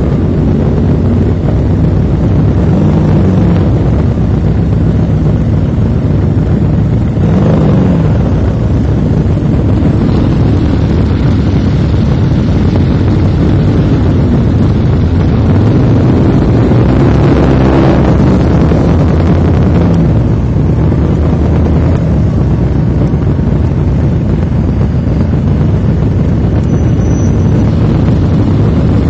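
Motorcycle engines at low riding speed, the nearest engine rising and falling in pitch a few times with the throttle, over a steady rumble of wind on the microphone.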